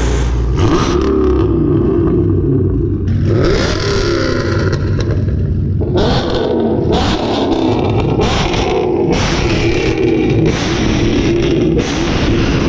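Car engines revving repeatedly, pitch rising and falling, in several short clips that change abruptly every second or few.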